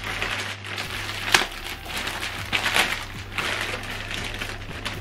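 Clear plastic bag crinkling and rustling as it is handled and opened by hand, with a sharper crackle about a second in.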